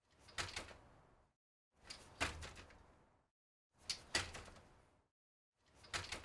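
Bicycle front wheel landing on the ground, four times about two seconds apart. Each landing is a low thud with a couple of sharp clicks and a short rattle that dies away within about a second.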